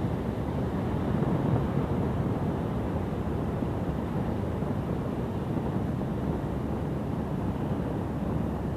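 Steady low rumble of wind buffeting the microphone, with no distinct calls or clicks standing out.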